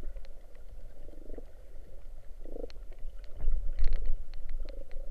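Underwater sound picked up by a diving camera: a low rumble of moving water with scattered sharp clicks and crackles. The rumble swells louder a little past halfway.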